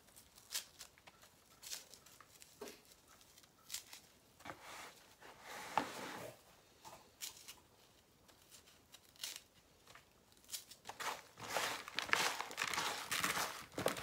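Hands breaking up and crumbling a soaked coconut coir brick in a plastic tub: sporadic soft tearing and crumbling rustles, busier in the last few seconds.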